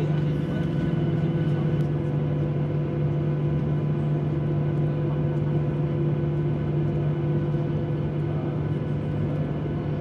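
Steady cabin drone of a Boeing 737-800 taxiing after landing: the idling engines and cabin air running as an even hum with a few constant low tones.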